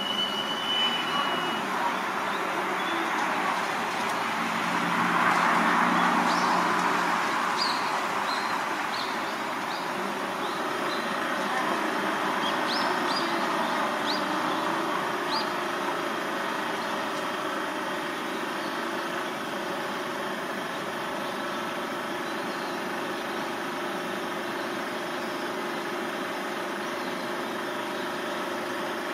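Steady outdoor background rumble and hiss, swelling for a couple of seconds about five seconds in. A high steady tone cuts off in the first half-second, and a scatter of short high chirps comes between about six and sixteen seconds in.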